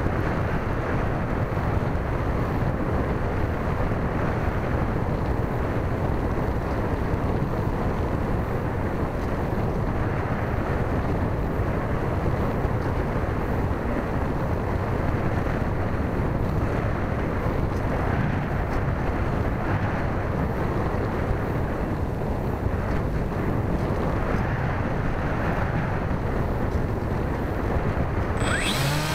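Steady rush of wind noise over the microphone of an onboard camera riding on a Multiplex Easystar RC plane in flight. A short rising whine comes in near the end.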